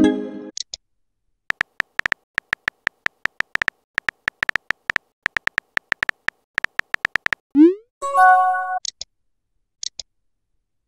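Chat-app sound effects: a short electronic chime, then a long run of quick keyboard typing clicks as a text message is typed. About three-quarters of the way in comes a quick rising swoosh as the message is sent, followed by a brief multi-note chime and a couple of faint high blips.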